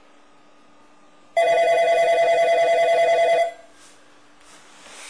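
Wall-mounted corded telephone ringing once, starting about a second and a half in: a loud, fast-warbling trill lasting about two seconds.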